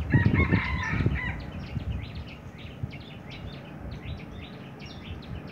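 Small birds chirping many times over a low rumble that is stronger in the first second or so.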